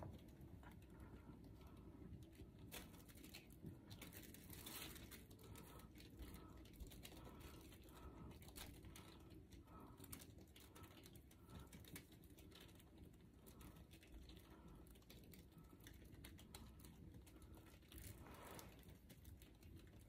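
Faint sound of a canvas being spun on a turntable: a low steady rumble with a soft tick repeating about every half second. Scattered light clicks and patter come from paint flung off the canvas onto the plastic sheeting.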